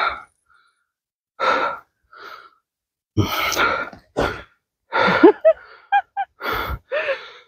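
A person's breathing: a series of short, breathy gasps and huffs, with a few brief squeaky vocal sounds about five to seven seconds in.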